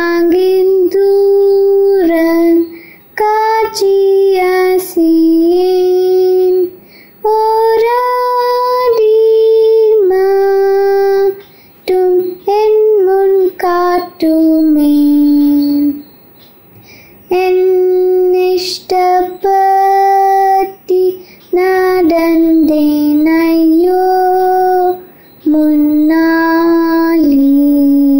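A girl sings a Tamil Christian song unaccompanied, in held notes and phrases with short breaks for breath between them.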